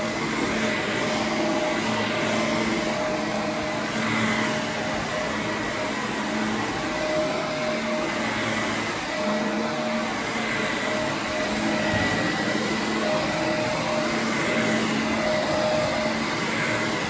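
Corded upright vacuum cleaner running steadily as it is pushed back and forth over carpet, its motor hum wavering slightly.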